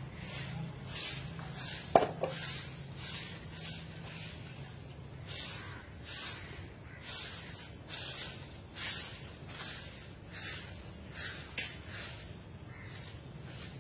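Short-handled broom sweeping a bare dirt courtyard: a run of brushing strokes, about two a second, growing sparser near the end. A single sharp click about two seconds in is the loudest sound.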